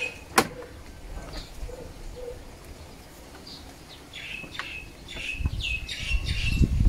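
Birds chirping in short, falling calls, busiest in the second half. A single sharp click about half a second in and low knocking and rustling near the end come from the plastic engine cover being pried loose by hand.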